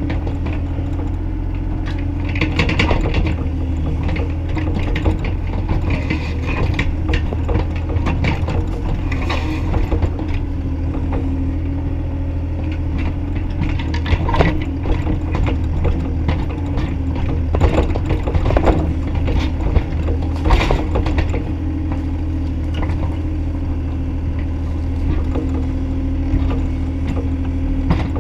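Bobcat E35i compact excavator's diesel engine running steadily under working load, with a steady hydraulic hum and scattered clanks and knocks from the bucket and arm linkage as it works soil in a ditch. The knocks come more often around the middle.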